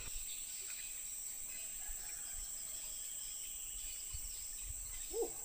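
Steady high-pitched drone of insects in the riverside vegetation, with one brief pitched sound near the end.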